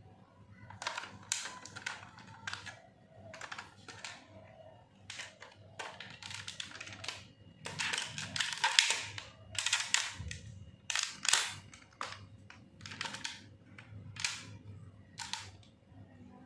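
Irregular plastic clicks, snaps and rattles of a DX Attache Arrow toy being handled and unfolded from its briefcase form into its bow form, with a denser run of louder clicks about halfway through.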